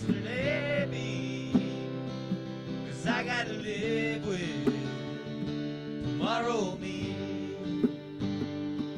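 Live acoustic band music: an acoustic guitar playing steadily, a hand drum struck in a regular beat, and three short, wordless gliding melodic phrases over the top.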